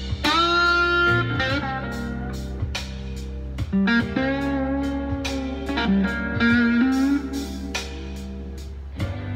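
PRS P22 electric guitar played lead through an MXR boost/overdrive pedal: sustained blues phrases with notes bent upward about 4 and 7 seconds in. Underneath runs a blues backing track with steady bass and drum hits.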